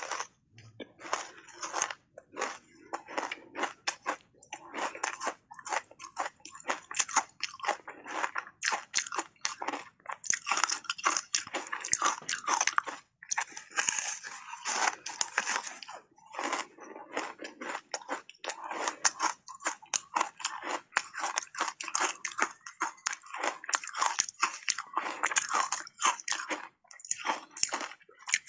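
Ice coated in matcha powder being bitten and crunched between the teeth: a dense run of sharp crunches, with a few short pauses.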